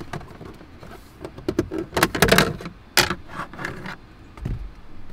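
Plastic clicks, knocks and rattles as the cabin air filter access cover behind a Lexus GX460's glove box is unclipped and pulled free, with a cluster of clicks about two seconds in and a sharp snap about three seconds in.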